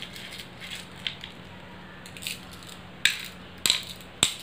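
Small shells clicking as they are scooped from and dropped into the hollowed cups of a wooden pallanguli board. There are a few faint clicks first, then several sharper ones near the end.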